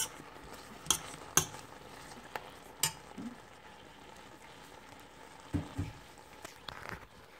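Metal spoon clinking and scraping against a stainless steel pan while rice cakes and cabbage are stirred, with sharp clicks in the first three seconds and a few more near the end. A faint sizzle of frying runs underneath.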